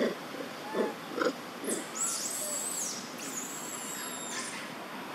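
Macaques grunting: about five short low grunts roughly half a second apart, followed by high thin whistling calls for a couple of seconds.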